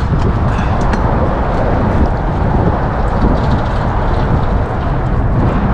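Wind buffeting the microphone: a loud, steady low rumble, with a few faint clicks over it.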